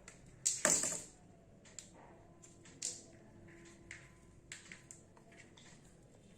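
A length of electrical wire being handled while wiring a switchboard: a short scrape about half a second in, then scattered small clicks and ticks.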